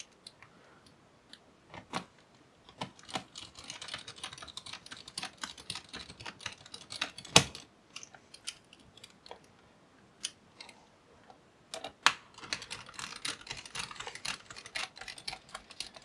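Small precision screwdriver driving screws into a laptop cooling fan's mounting points: scattered light clicks and taps of the bit seating and turning in the screws, with a sharper click about seven seconds in and again about twelve seconds in.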